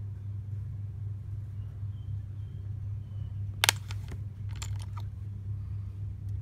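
Metal rings clicking as a silver-set turquoise ring is picked out of a ring display box and held against another: one sharp click about three and a half seconds in, then a few lighter clicks. A steady low hum runs throughout.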